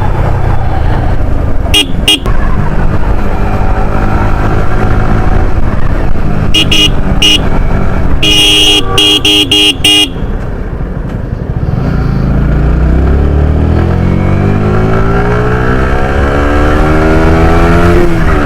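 Yamaha R15's single-cylinder engine running while riding in traffic, with vehicle horns honking: a few short toots, then a longer run of honking near the middle. In the second half the engine pulls up in a long, steadily rising note that drops away just at the end.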